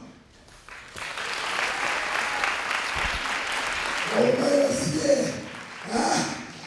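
Audience clapping steadily after a brief lull. A voice speaks over the applause from about four seconds in.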